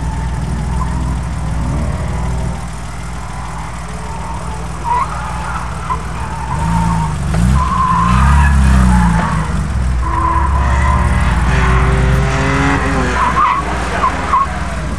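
Classic Porsche 911's air-cooled flat-six revving up and down hard as the car is slid through tight turns, with the tyres squealing in short chirps several times.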